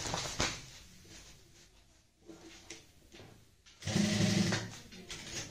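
Sewing machine stitching in short runs, securing a strap handle onto a cloth bag: one run dying away at the start, then quieter handling of the fabric, then another run of about a second near the end.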